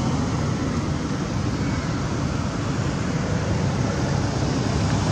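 Steady low rumble of outdoor background noise with an even hiss above it, with no distinct calls or knocks.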